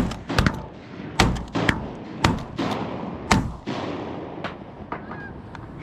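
Shotguns firing at geese: several shots in quick succession over the first three and a half seconds, each with an echoing tail, then the firing dies away.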